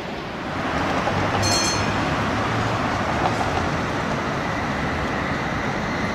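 Tatra T3 tram running along street track, wheels on the rails making a steady rumble, with a brief high ring about one and a half seconds in.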